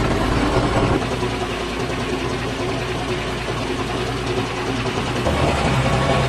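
Old truck's engine running at low speed, heard from on board, a steady low drone that changes abruptly about a second in and again near the end.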